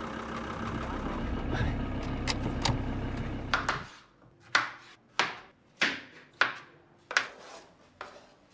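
A van's engine runs with a steady low hum for about four seconds. It gives way to six sharp knife chops on a cutting board, a little over half a second apart, cutting a courgette.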